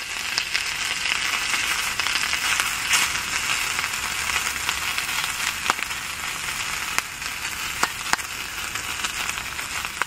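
Sausages sizzling in a small black frying pan, a steady hiss of frying fat with a few sharp pops of spitting grease.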